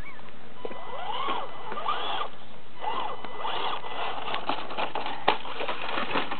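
Electric motor and gears of a radio-controlled Toyota Tundra truck whining up and down in short bursts of throttle. In the second half this gives way to a run of clicks and knocks, one sharper than the rest about five seconds in, as the truck tumbles over.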